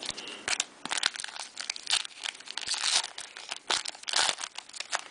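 Trading cards and their pack wrapper being handled: a quick, irregular run of rustles and crinkles as cards are shuffled and the foil pack is worked.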